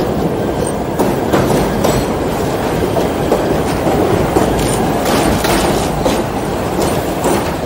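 New York City W subway train running along elevated track: a steady rumble of wheels on steel rail, with sharp clicks at uneven intervals as the wheels cross rail joints.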